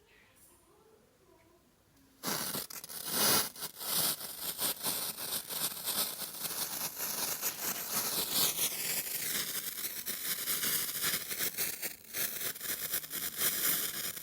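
Potassium nitrate and sugar smoke mixture igniting about two seconds in and burning with a loud, sputtering hiss full of crackles, with a faint wavering whistle in the second half, until it cuts off near the end. The burn is unsteady because the mixture is not fully dry.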